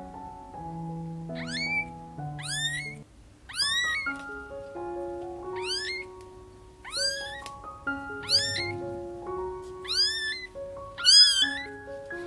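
Newborn kitten crying for its mother: a string of short, high-pitched mews about once a second, each sweeping up in pitch, the loudest near the end. Soft background piano music plays underneath.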